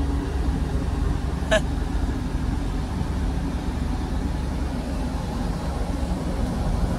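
Steady low rumble of a cargo ship's machinery running while the ship lies at anchor, with one short high chirp about a second and a half in.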